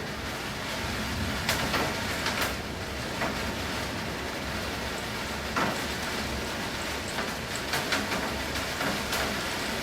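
Steady rain falling, with scattered sharp, louder drops splashing close by at irregular intervals.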